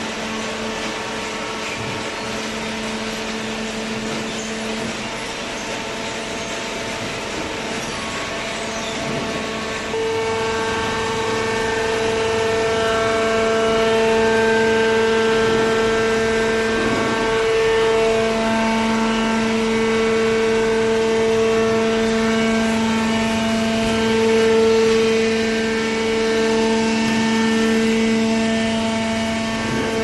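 Horizontal cardboard baling machine running: its electric motor and hydraulic pump give a steady hum with a pitched whine, which gets louder and fuller about ten seconds in.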